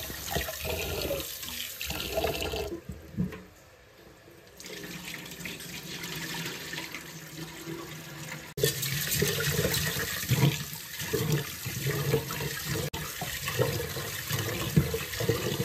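Rice being washed by hand in a pot under a running kitchen tap: water streaming and splashing as the grains are swirled, and the rinse water poured off into a stainless steel sink. A quieter moment about three seconds in, and louder splashing in the second half.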